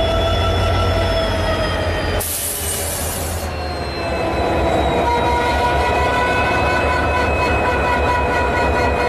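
EMD diesel locomotive sounding its multi-tone air horn in long held blasts over the low rumble of its engine, with a short hiss about two seconds in and the horn chord coming back at a different pitch midway.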